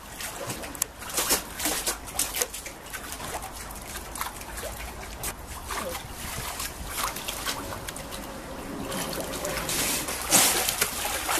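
Pool water splashing and sloshing as a California sea lion swims and moves about in a shallow pool, with a louder splash near the end.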